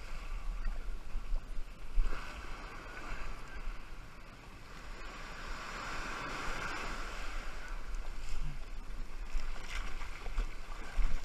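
Ocean surf breaking and washing up a sandy beach, the wash swelling and fading in surges, with wind buffeting the microphone as a low rumble.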